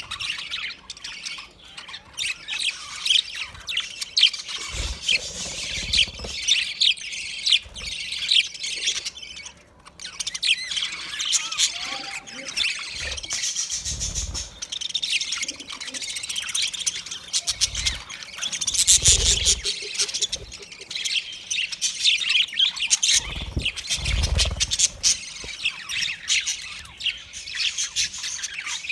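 Budgerigars chattering continuously: a dense stream of rapid high chirps, warbles and squawks from several birds. A few brief low thuds occur about five seconds in, near the middle, and twice near the end.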